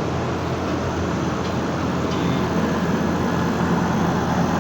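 Condensing unit of a cabinet-type split air conditioner running steadily, with a low hum from its newly replaced compressor under the even rush of the condenser fan. The compressor is working normally, its suction line already cold.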